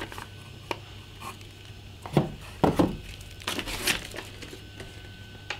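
Handling sounds of a paper instruction sheet: scattered rustles and light knocks as it is moved about and laid on the table, a few louder ones about two seconds in and again between three and a half and four seconds.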